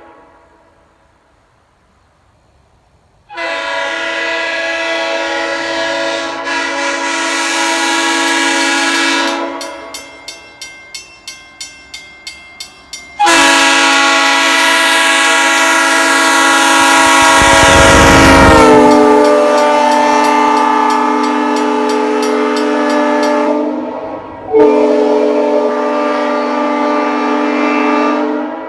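Leslie RS3L three-chime locomotive air horn, Tampa-built with 25, 31 and 44 bells, sounding its chord. First comes a blast of about six seconds, then a quick run of about eight short toots, then a long, loud blast whose chord sags lower in pitch partway through, and a last blast that fades out near the end.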